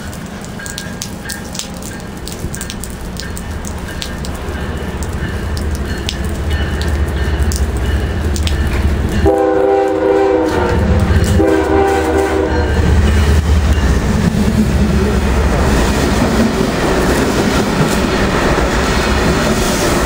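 Norfolk Southern light engine move, a set of diesel locomotives running without cars, approaching and passing close by. The engine rumble grows steadily louder, two blasts of the locomotive air horn sound about halfway through, and the locomotives then run past loudly.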